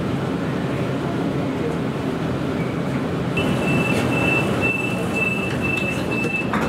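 Door-closing warning beeps of a Sydney Waratah double-deck train: a high steady-pitched beep repeating about twice a second, starting about halfway through, with a sharp knock at the end as the doors shut. A low steady hum of the stationary train runs underneath.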